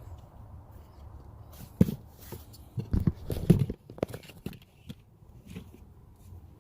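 Handling noises: a cluster of knocks and clicks between about two and four seconds in as a hose is worked onto a line, over a low steady hum.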